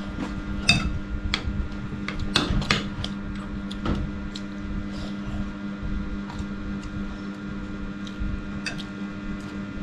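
Metal spoons clinking and tapping against ceramic bowls and plates during a meal: a few light, scattered clinks, some with a brief ring, over a steady low hum.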